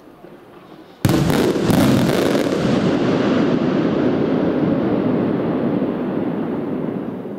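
Aerial firework shell bursting with a sharp bang about a second in, followed by several quick reports and a long rolling rumble that slowly fades.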